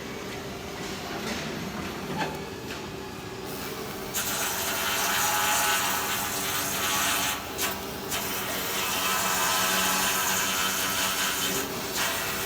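Flux-cored arc welding on stainless steel: the arc strikes about four seconds in and hisses and crackles steadily, stopping briefly near the middle and again near the end.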